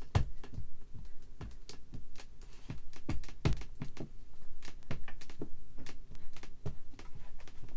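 Quick, irregular light taps of an ink pad being dabbed onto clear stamps set in a stamping platform, inking the stamps.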